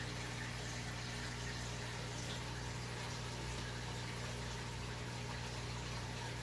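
Aquarium filtration running: a steady low hum with water trickling and bubbling, unchanging throughout.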